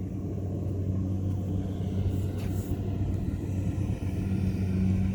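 Kubota DC70 rice combine harvester's diesel engine running steadily under load, a deep even hum.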